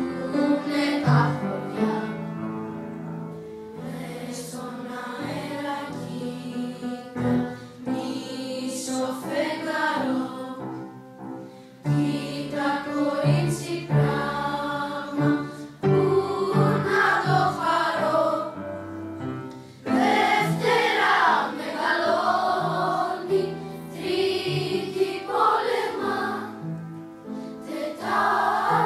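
Children's choir singing a Greek song, phrase after phrase with short pauses for breath.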